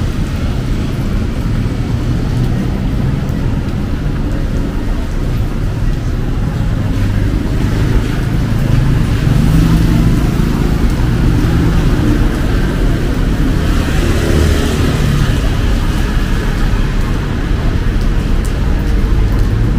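Street traffic: car engines running steadily as vehicles go by, with a louder swell of tyre and engine noise as one passes close a little past the middle.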